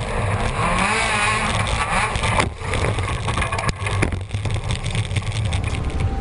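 Rallycross race car engine revving hard at speed, the pitch rising and falling, with brief sharp drops in level about two and a half and four seconds in.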